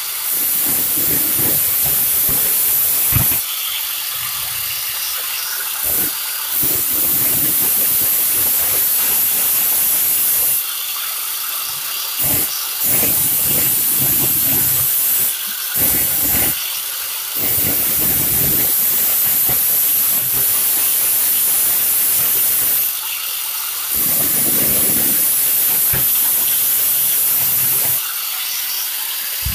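Handheld angle grinder running continuously, its abrasive disc grinding the steel edge of a kerambit blade to sharpen it. The grinding noise swells for a few seconds at a time and eases back in between as the disc is pressed onto the metal and lifted off, over and over.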